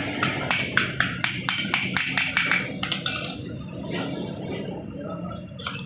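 Metal tapping and clinking on metal during motorcycle clutch work: a run of quick, sharp clinks at about four a second that stops about three seconds in, followed by a short scraping rattle.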